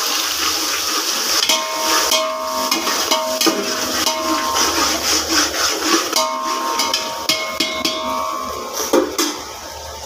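Onion, garlic and ginger paste frying and sizzling in hot oil while being stirred in a metal pan, with scraping clicks and short ringing tones from the pan. The sizzle gets quieter about nine seconds in.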